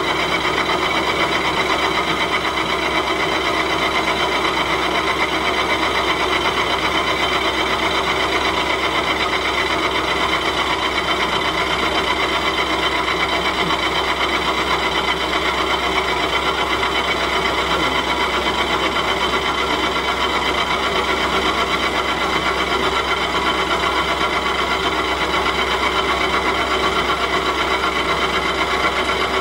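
VMC650 vertical machining center milling: the end mill cuts along the rim of a metal disc with a steady scraping cutting noise and several constant tones over it.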